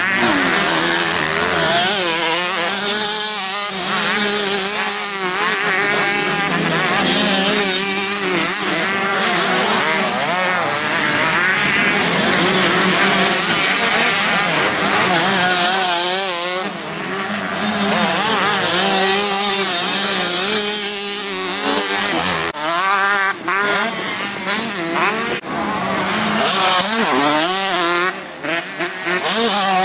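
Motocross bike engines revving hard as the bikes race through the track, the pitch rising and falling again and again with throttle and gear changes, several engines overlapping.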